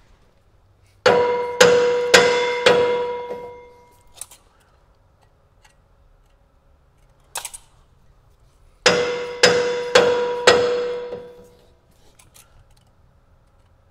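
Rubber mallet tapping a steel drive sprocket outward along its shaft to align it: two sets of four blows about half a second apart, each set leaving a metallic ring that fades over about a second, with one short click between the sets.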